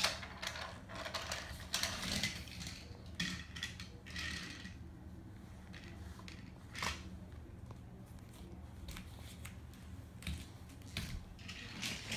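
Wooden toy trains and track pieces clicking and clattering irregularly as they are handled, over a faint steady low hum.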